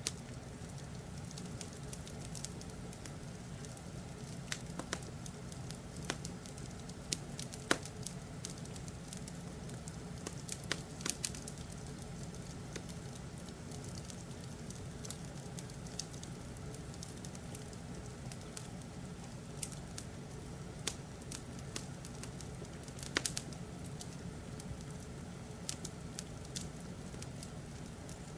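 Wood fire crackling, with sharp irregular pops scattered over a steady low rumble, as in fireplace ambience.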